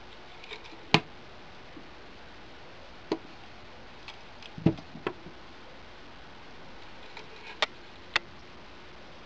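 Hinged black walnut box being opened and closed by hand: about six sharp wooden knocks and clacks of the lid against the box, the loudest about halfway through, with faint light clicks in between.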